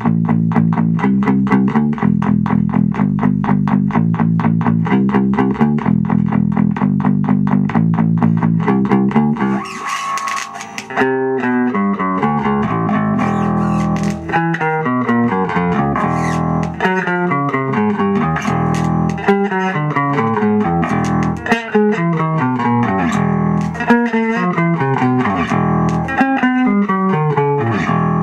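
Handmade medium-scale electric bass with passive single-pickup electronics, played through an amplifier. For about nine seconds it plays fast, even, palm-muted notes on the low strings. After a brief pause it moves into runs of notes that step down and back up.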